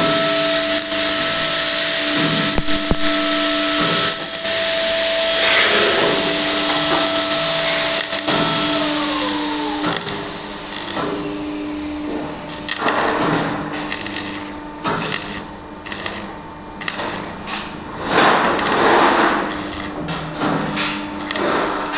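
Power tool in steel canopy fabrication, running with a steady whine over a hiss, then winding down with a falling pitch about nine seconds in. After that come separate bursts of hissing and knocks.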